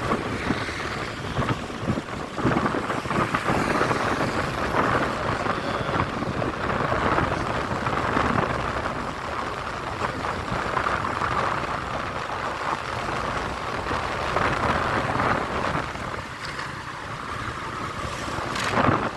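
Road traffic: cars and other vehicles passing as a steady, surging noise, with a brief sharp noise near the end.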